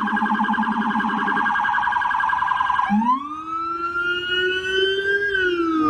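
Electronic police siren. It opens with a fast warbling yelp for about three seconds, then switches to a wail that rises, holds, and falls away near the end.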